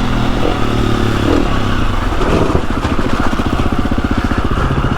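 Trail motorcycle engine running at low revs over a stony green lane, the revs rising and falling, settling into a low, even chug from about two seconds in.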